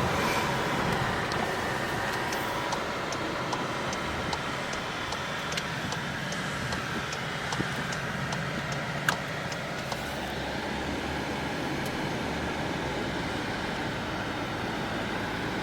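Steady running noise of a motor vehicle, engine and road rumble together, with a light, regular ticking for a few seconds and a single sharp click about nine seconds in.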